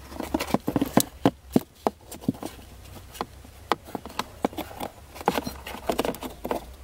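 Irregular small plastic clicks and taps as a blower motor resistor and its wiring connector are handled, over a low steady hum.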